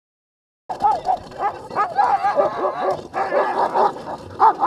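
A team of sled dogs yelping and whining, many voices overlapping, starting abruptly about a second in.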